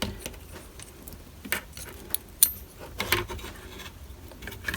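Light clicks and clinks of small plastic and metal parts being handled and fitted together, about a dozen at irregular spacing, as a replacement hatch-release button assembly is put back together.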